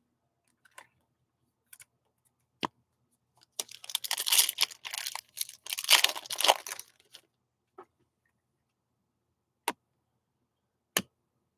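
A trading card pack's wrapper being torn open and crinkled by hand, a dense crackling that starts a few seconds in and lasts about three and a half seconds. A few single sharp clicks come before and after it as the cards are handled.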